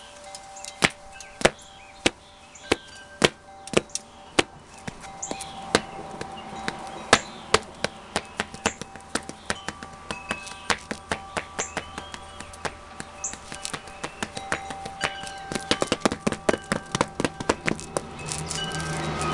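Ecco leather dress shoes tapping on a concrete floor: sharp taps about two a second at first, then faster and closer together near the end. Wind chimes ring in the background.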